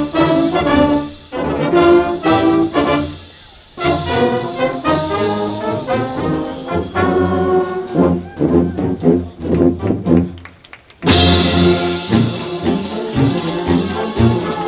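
Marching band playing a march outdoors as it marches: trombones, trumpets and sousaphones over bass drums and cymbals. The music thins almost to nothing about ten seconds in, then the full band comes back in with a cymbal crash about a second later.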